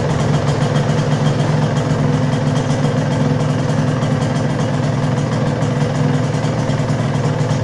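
Yamaha TZM 150's single-cylinder two-stroke engine idling steadily, running again after ten years laid up.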